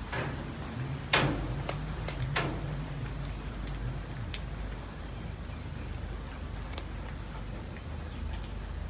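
Flies buzzing low and steady, with a handful of sharp clicks scattered through, the loudest about a second in.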